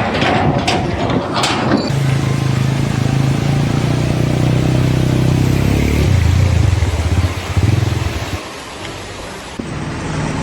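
An engine running steadily, with its pitch dropping a little about two-thirds of the way through before it fades. A few sharp knocks come at the start.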